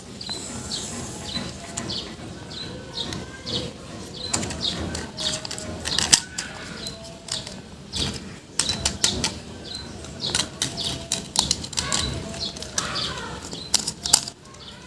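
Plastic toys and packaging being handled: irregular clicks, knocks and rustling, with short high chirps repeating about twice a second.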